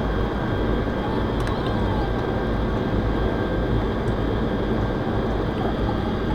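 Tupolev Tu-154M airliner's jet engines running: a steady, loud rumble with a constant high whine over it.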